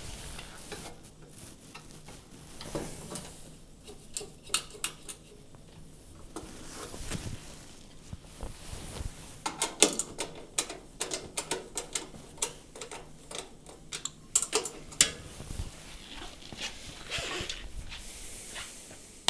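Scattered metallic clicks, taps and knocks of hand tools working on a range cooker's levelling pads and rear rollers, with quick runs of clicks a few times.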